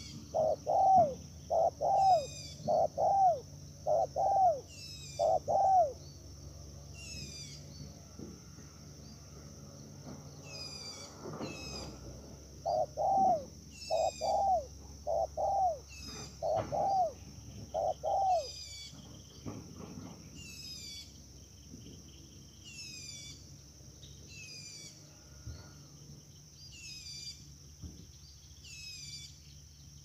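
A dove cooing: two runs of loud, arching coos, one at the start and another about halfway through. Under them run another bird's high falling chirps, repeating every second or two, and a steady high insect drone.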